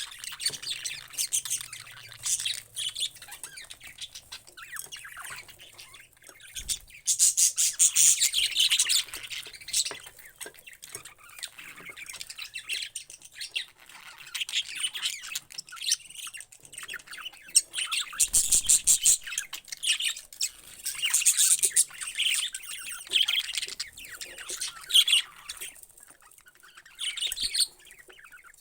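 Parrots calling: chattering and squawking in repeated loud bursts, with quieter chirps between them.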